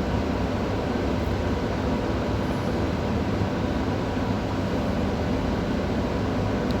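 Steady rumbling background noise with a low hum and hiss, unchanging throughout, with no distinct clicks or knocks.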